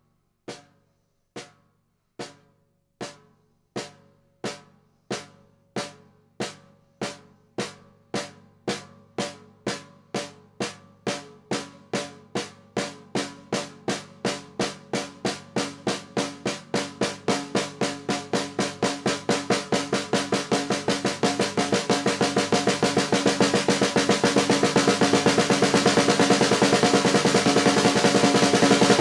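A drum struck in an even beat that keeps speeding up and growing louder until the hits run together into a dense roll near the end, a build-up in the video's music.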